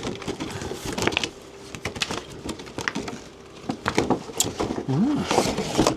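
Heated-grip kit box being unpacked by hand: packaging rustling and handled, with many small clicks and knocks. A short hum from a man's voice comes about five seconds in.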